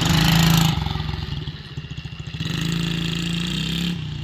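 Small youth dirt bike engine being ridden. The throttle opens hard at the start, eases off, opens again from about two and a half seconds in, then backs off just before the end.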